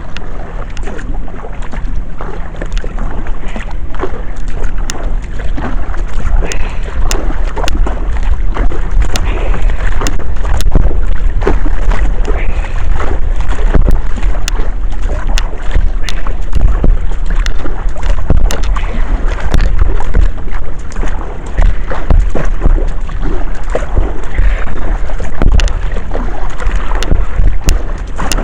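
Kayak paddle strokes: the blades dipping and splashing in the water with scattered drips and knocks, in an irregular run of short splashes. Under them is a strong low wind rumble on the microphone.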